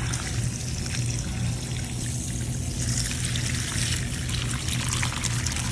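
Water pouring and trickling out of an old, removed tank water heater, carrying the buildup the heater has collected over the years.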